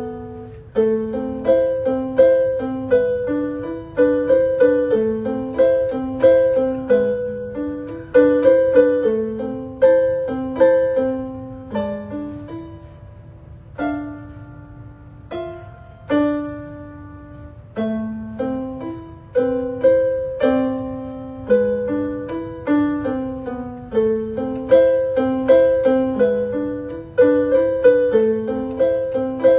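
Digital keyboard played with a piano sound: a solo piece of flowing broken chords around a repeated middle note. About halfway through it thins to a few longer held chords, then the running figures return, over a faint low hum.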